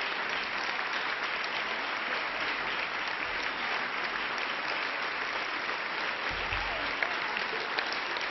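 Audience applauding steadily, a dense even clapping that keeps up without a break.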